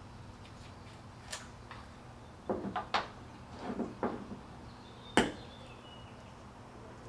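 Light clicks and knocks of a small primer bottle and its cap being handled, opened and set down on a plastic truck bedliner, with a few clusters of taps and one sharper click about five seconds in.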